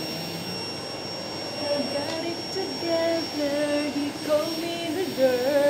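Canister vacuum cleaner running steadily with a thin high whine from its motor. From about a second and a half in, a woman's voice sings a melody over it.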